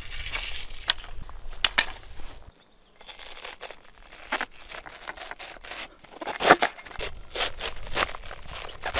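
A cleaver blade slicing through a raw head of green cabbage: crisp, cracking crunches as the leaves split, loudest about six and a half seconds in. Before that, a few sharp snaps and rustles.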